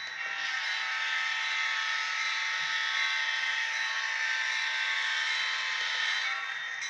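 ESU LokSound sound decoder in an N scale EMD SD40-2 playing diesel locomotive sound through the model's tiny speaker as the locomotive moves off. The sound is steady and thin, with no bass, and eases off about six seconds in.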